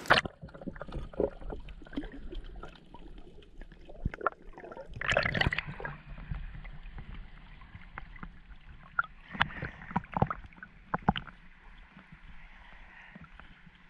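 Shallow seawater lapping and sloshing around a camera held at the water's surface, with scattered small splashes and clicks and a louder slosh about five seconds in.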